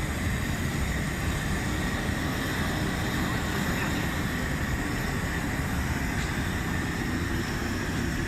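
Bell-foundry melting furnace running with its air blower: a steady, even rushing noise, strongest in the low range, with a faint steady high whine.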